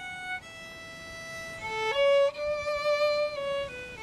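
Solo violin bowing a slow melody of long held notes, with a few shorter notes stepping up and then down in the second half.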